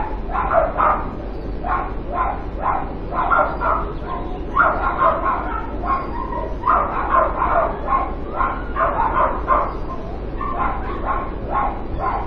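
Dogs barking persistently, an unbroken run of short barks and yips several times a second, over a steady low hum.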